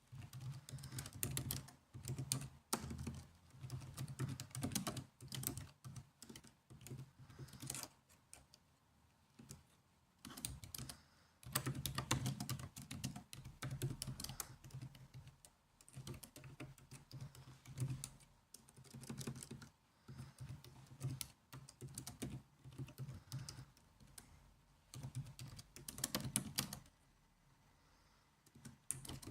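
Typing on a laptop keyboard: quick runs of soft key clicks in bursts of a few seconds, broken by short pauses and a longer pause near the end.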